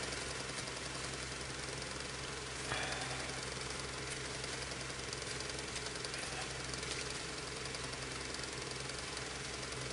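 A steady low mechanical hum, with faint rustling of ribbon being handled and one brief louder rustle about three seconds in.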